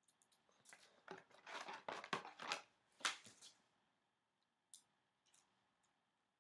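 A trading card being slid into a clear plastic sleeve and rigid top loader: a run of short plastic scrapes and rustles over the first half, then a single faint tick.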